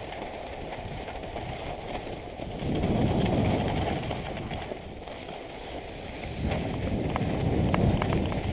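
Skis sliding and scraping over packed snow during a downhill run, with wind rushing over the microphone. The noise swells twice, about three seconds in and again near the end.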